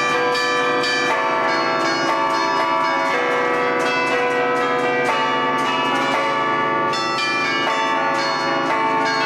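A concert of twelve church bells played by hand from a wooden baton keyboard in the Bergamasque allegrezza style, a continuous tune in the manner of band music, with frequent strikes and the notes ringing on over one another.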